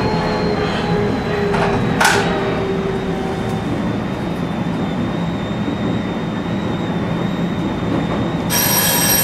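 E127-series electric train running steadily, heard from inside the cab: even running noise with a thin, steady high motor whine and a short sharp knock about two seconds in. Near the end an electronic ringing tone starts over it.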